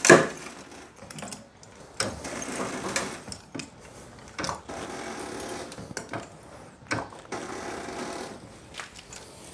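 Hydraulic floor jack being pumped by its handle to lift a car: repeated mechanical strokes roughly every second or so, with clicks between them, opening with a sharp click.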